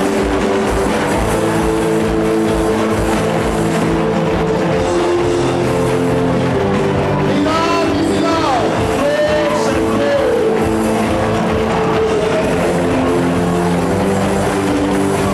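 Loud worship music of sustained chords over a steady beat, under a congregation praying aloud together, many voices crying out at once. The voices swell into rising and falling wails about halfway through and again near the end.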